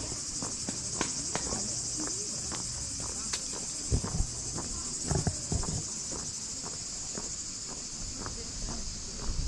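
Steady, high-pitched chorus of insects in summer vegetation, a continuous finely pulsing buzz. A few soft low thumps stand out around four to five seconds in.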